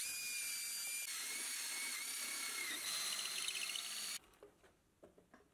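Cordless drill boring into a clamped plywood fork leg: a high whine over the hiss of cutting wood, which cuts off sharply about four seconds in, followed by a few light knocks.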